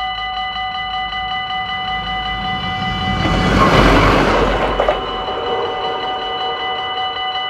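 Dutch level-crossing bells ringing steadily. A train rushes past about three to five seconds in, its noise and low rumble swelling quickly to the loudest point and then fading, with a sharp click near the end of the pass.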